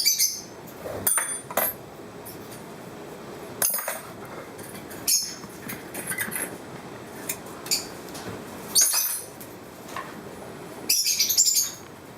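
Pieces of glass from a broken aquarium clinking and scraping against each other as they are handled, in short sharp bursts every second or two, with a longer run of clinks near the end.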